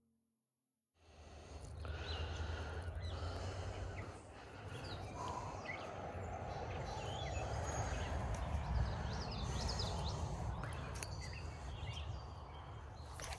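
Outdoor ambience starting about a second in: several birds chirping over a steady low rumble, with a few faint clicks.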